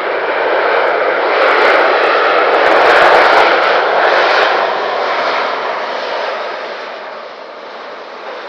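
Jet airliner landing and passing close by: a rushing engine noise that swells to a peak about three seconds in and then fades away.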